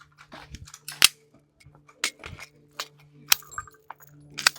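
Sharp metallic clicks and clinks from handling guns and ammunition, a string of short knocks with the loudest about a second in and again near the end, over a faint steady hum.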